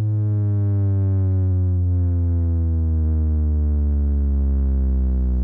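A deep electronic tone played loud through a large sound system, gliding slowly and steadily downward in pitch, like a bass sweep.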